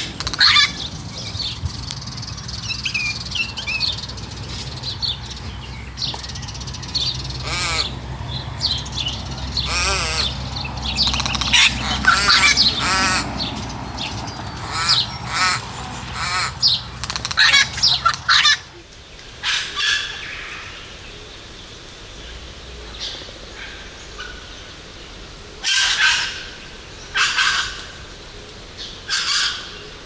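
Little wattlebird giving loud, harsh, repeated calls. About 18 seconds in, the sound switches to a red wattlebird's harsh calls in short separated bursts.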